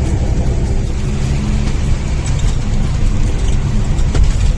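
Heavy goods truck's engine running steadily as the truck drives along, a continuous low drone with one brief tick about four seconds in.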